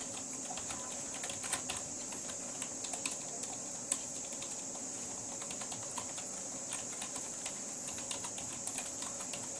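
Keys of an HP K3500 wireless keyboard with chiclet-style keys being typed on, a run of light irregular clicks that is quicker in the first few seconds and sparser after.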